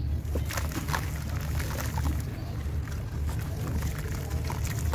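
Hands sloshing wet sand-cement in a plastic tub of grey slurry water, the soaked slab giving small gritty crackles as it is handled and starts to crumble, over a steady low rumble.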